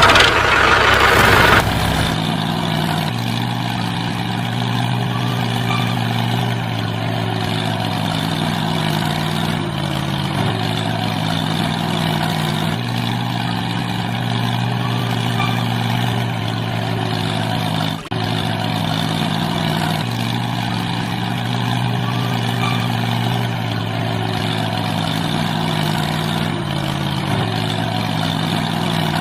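A tractor engine running steadily with an even, low hum, briefly dropping out for a moment about eighteen seconds in.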